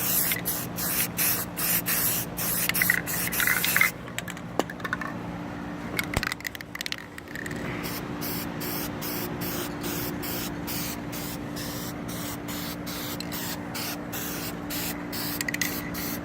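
Spray paint going on in quick, evenly repeated short bursts of hiss, with a pause between about four and eight seconds in, over a steady low hum.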